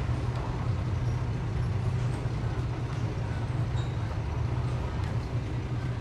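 Diesel engine of heavy construction machinery running steadily: a low, even drone.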